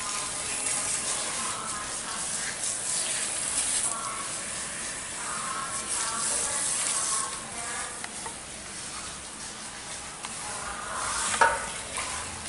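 Water spraying from a salon shampoo-basin hand sprayer onto hair and into the basin, a steady hiss that swells and eases as the hair is rinsed. A brief sharp knock near the end is the loudest moment.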